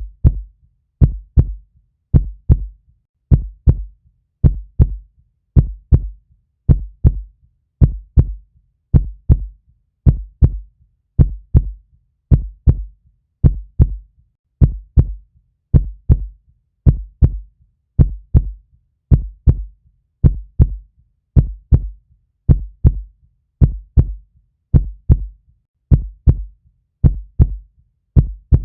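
Human heartbeat, a steady, slow double thump (lub-dub) repeating a little under once a second. Each pair is deep and low.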